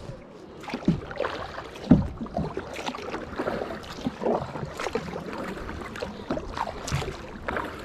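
Kayak paddle strokes splashing in the water, with irregular splashes and drips, the loudest about two seconds in.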